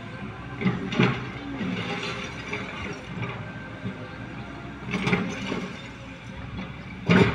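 Tracked excavator's diesel engine running while the bucket clanks and scrapes on rubble, with sharp knocks about a second in, again at about five seconds, and near the end.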